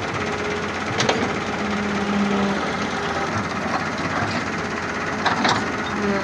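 Heavy machine's engine running steadily under a rough mechanical drone, with a sharp knock about a second in and a couple more near the end.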